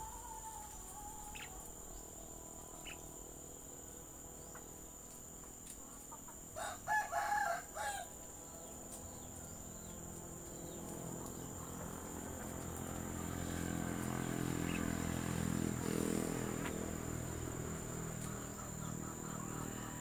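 A rooster crows once, a pulsed call a third of the way in and the loudest sound here. Later a low rumble swells and fades.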